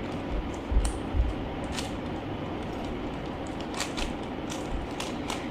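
Plastic clicks of a 3x3 Rubik's cube being turned through an algorithm: a scattering of separate sharp clicks, most of them in the second half, with a couple of low bumps from handling about a second in.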